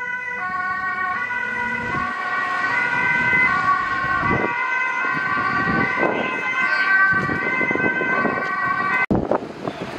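Ambulance siren sounding continuously, its pitch shifting in steps, then stopping abruptly about nine seconds in.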